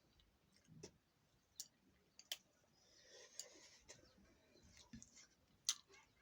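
Near silence with a few faint, sharp clicks scattered through it, the loudest near the end, and a soft hiss around the middle.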